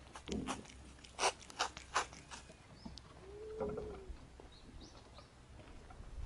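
Quiet outdoor ambience with several sharp taps in the first two seconds, then one short, low animal call that rises and falls about three and a half seconds in, with a few faint high bird chirps.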